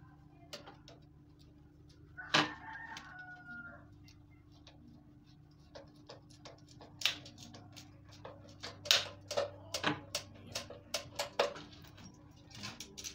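A screwdriver driving a screw with washer into the white plastic frame of a 14-inch extractor fan, making irregular sharp clicks and scrapes that come thickest in the second half. About two seconds in, a single drawn-out call with a few steady pitches lasts about a second and a half.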